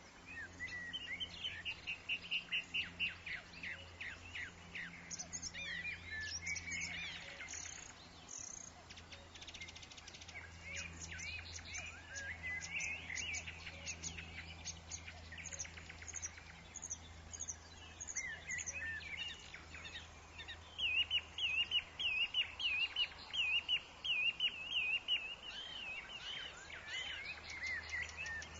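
Several woodland songbirds chirping and singing at once in overlapping calls and trills, with a fast repeated warbling phrase from one bird for several seconds near the end. A faint steady low hum lies underneath.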